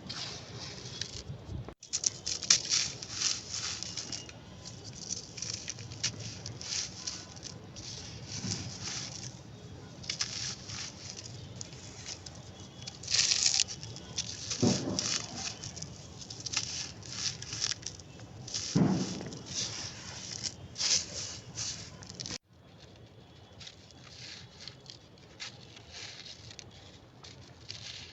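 Crunchy, brittle material being crumbled and crushed, a dense run of fine crackles with louder crunches now and then. The sound cuts off abruptly twice, near the start and about three quarters of the way through, and the crackling after the second cut is quieter.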